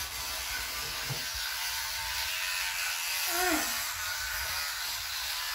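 Children's electric toothbrushes buzzing steadily during brushing. A brief child's vocal sound comes about three and a half seconds in.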